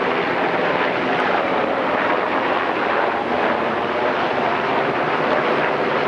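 Aircraft flying low overhead: a loud, steady rush of engine noise.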